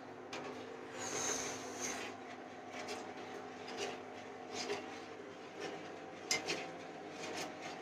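Faint rubbing and handling noises with scattered light clicks and knocks, over a steady low hum.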